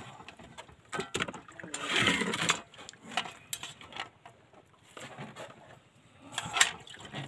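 Eating by hand from a plate: scattered small clicks and crackles as fingers pick apart shrimp and fish, with a brief louder rustle about two seconds in.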